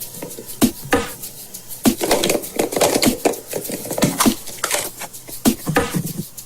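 A chocolate surprise egg being broken open: irregular sharp cracks and snaps, with a crinkly, crackling stretch about two seconds in.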